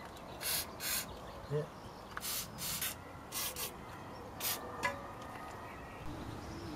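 Aerosol can of lubricant spray hissing in a series of short bursts, some in quick pairs, as penetrating lubricant is sprayed onto suspension bolts before they are undone.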